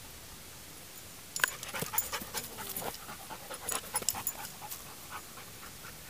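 German Shepherd dog panting close by, with quick, irregular clicking mouth and breath noises starting about a second in and dying away about a second before the end.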